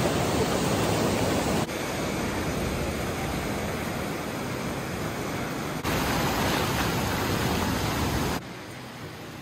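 Surf breaking and washing up the beach, a steady rushing noise that jumps in level at a few sudden cuts and is quieter for the last second.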